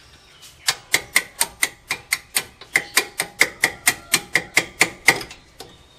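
Hammer striking a steel punch held against a car's front steering knuckle: about twenty quick metallic blows, roughly four or five a second, each with a short ring. They start under a second in and stop about five seconds in.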